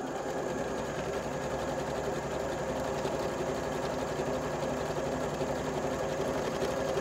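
Janome sewing machine running steadily, stitching a straight seam through two layered cotton quilt squares.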